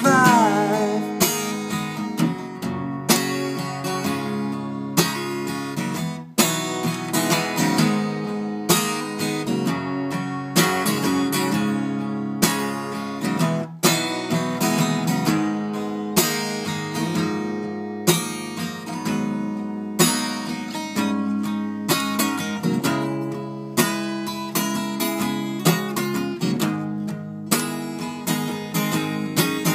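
Acoustic guitar being strummed, steady chords ringing through an instrumental break in a song.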